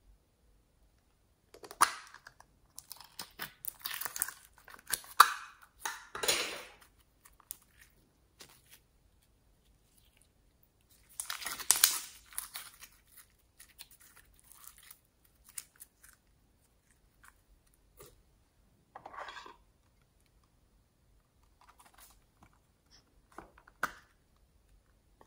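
Slime being squeezed and kneaded by hand, giving bursts of dense small crackles with quiet pauses between. Near the end come a few sharper clicks from a small plastic case being handled.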